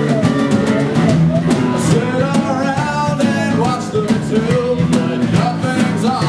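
Rock music: a voice singing a melody over a drum kit and guitar.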